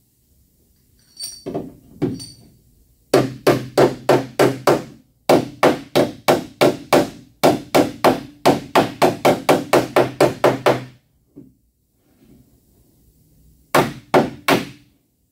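Body hammer striking a car's sheet-metal panel against a dolly held behind it, working out a dent to bring back the panel's contour. A few light taps, then quick runs of ringing blows, about three to four a second with short pauses, and three more strikes near the end.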